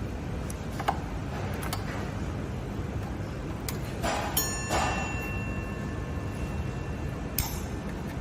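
Scattered clicks and clinks of metal tools on scooter parts, over a steady low hum. About four seconds in, one metal strike leaves a clear ringing tone that fades over two to three seconds.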